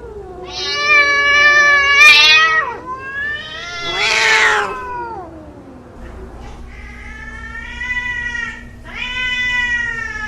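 Angry domestic cat caterwauling: four long, drawn-out yowls that waver in pitch, the second one harsher, rising and then falling. A sharp click about two seconds in.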